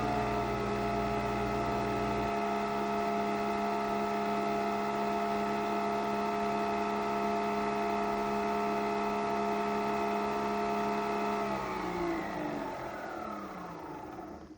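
Nespresso Vertuo Pop+ coffee machine spinning the capsule during brewing: a steady motor whine of several tones. A deeper hum cuts out about two seconds in, and near the end the pitch falls away as the capsule spins down.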